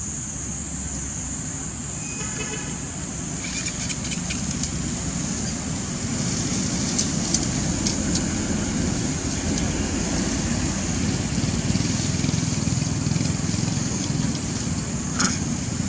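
Outdoor ambience: a steady low rumble with a constant high-pitched drone over it, a few faint clicks, and a short sharp sound near the end.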